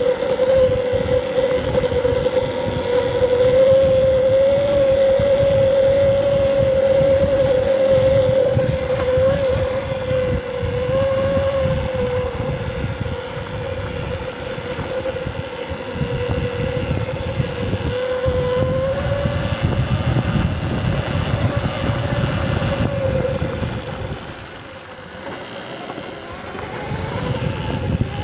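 Electric dirt bike riding: the motor and drivetrain whine at a fairly steady, slightly wavering pitch over a rough rumble of tyres and wind. The whine drops away briefly near the end.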